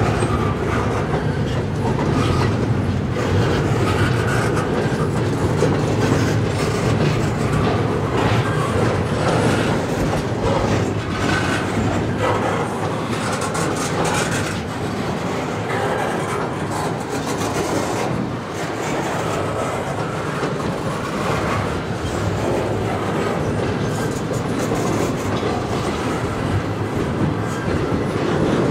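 Double-stack intermodal container well cars rolling past: a steady rumble of steel wheels on rail with a continuous clickety-clack.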